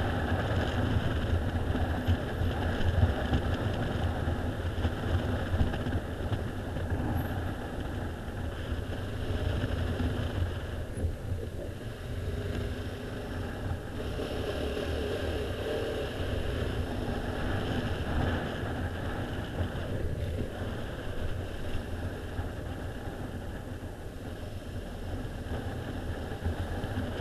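Motorcycle engine running at low speed with road and wind rumble, picked up by a camera mounted on the bike as it rides slowly through queued traffic. It is louder over the first ten seconds or so, then eases.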